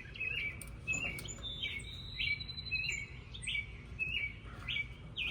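Small songbird chirping repeatedly: short falling chirps about twice a second, with a thin higher held note between about one and three seconds in.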